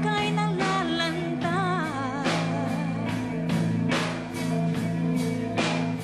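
Live rock band playing: drum kit keeping a steady beat under bass and guitars, with a held melody line wavering in vibrato over the first two seconds.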